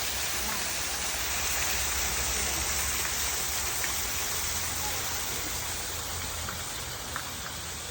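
Steady rush of water, an even hiss with no change in level.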